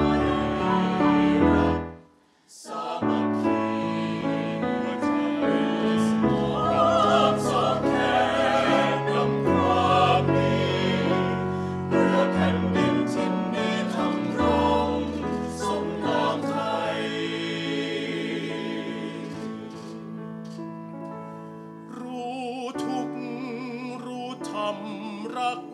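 Mixed-voice choir of men and women singing together in harmony, breaking off for a brief pause about two seconds in before the voices come back in.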